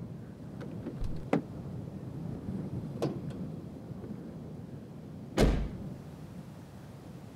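An SUV's car door slammed shut about five and a half seconds in, one solid thump. A few light clicks come before it.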